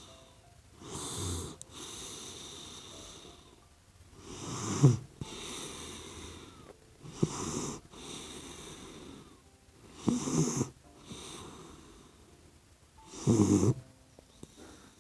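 Sleeping puppy snoring: five loud snores about three seconds apart, each followed by a softer, longer wheezy breath.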